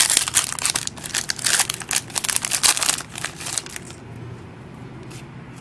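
Foil trading-card pack wrapper crinkling and rustling as it is handled and opened, dense for about four seconds, then only a few faint ticks.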